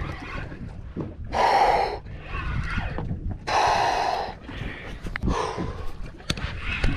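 Hard, forceful breathing of an angler straining against a big amberjack on rod and reel: two loud exhales, the first about a second and a half in and the second about two seconds later, with fainter breaths between and after.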